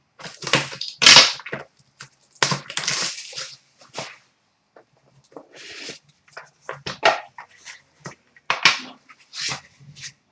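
Packaging of a trading-card box crinkling and tearing in irregular bursts, as the box is opened.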